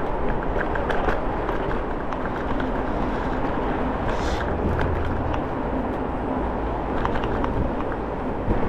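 Steady rumble and wind noise of a Segway Ninebot Max electric scooter rolling over a concrete sidewalk, with scattered small clicks and rattles as it crosses the pavement joints.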